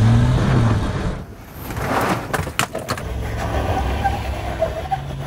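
Land Rover LR3's V8 engine revving as the truck climbs sandstone slickrock, then running steadily under load. Two sharp knocks come about halfway through.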